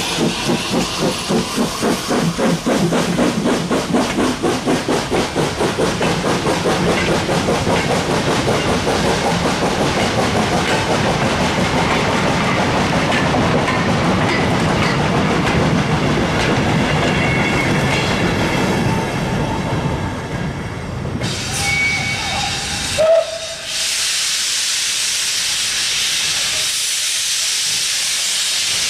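Steam tank locomotives hauling a goods train working hard past at close range, their exhaust a rapid, even chuffing, followed by the wagons rolling by with a clickety-clack of wheels over the rails. After a sudden cut about 23 seconds in comes a steady hiss of steam from a locomotive standing in a station.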